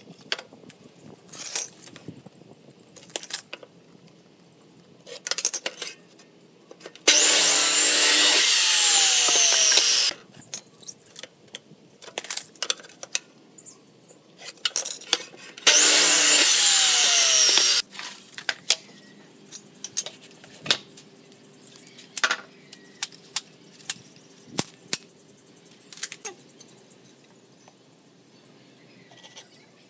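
Electric miter saw run twice, each cut lasting two to three seconds, sawing through wooden boards. Between and after the cuts come scattered knocks and clicks as boards and tools are handled.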